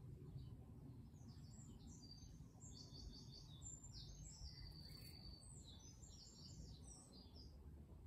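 Songbird singing a fast, varied song of short high notes and trills, with one longer held whistle about halfway through. The song starts about a second in and stops just before the end, over a faint steady low rumble.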